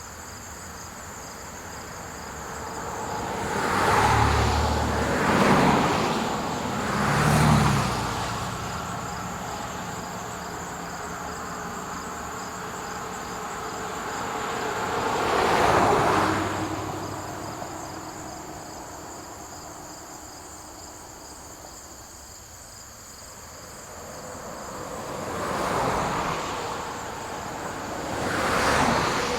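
Cars passing by on a road one after another, each swelling and fading: three in quick succession a few seconds in, one around the middle and two near the end. Crickets chirp steadily underneath.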